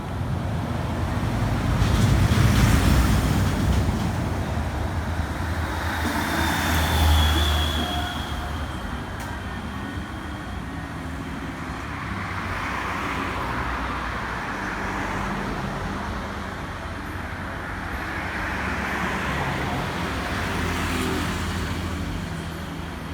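Road traffic: vehicles passing one after another, their engine and tyre noise swelling and fading several times. A brief thin high squeal comes about seven seconds in.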